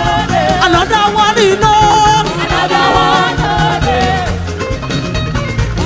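Live gospel praise music: singing with a band playing an upbeat groove under it, bass and drums keeping a steady beat.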